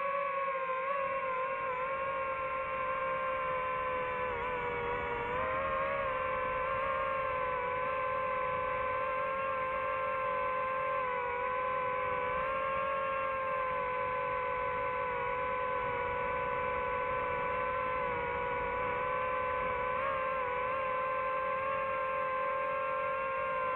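DJI FPV drone's motors and propellers giving a steady whine, its pitch dipping and recovering slightly with throttle changes, most noticeably about four to six seconds in.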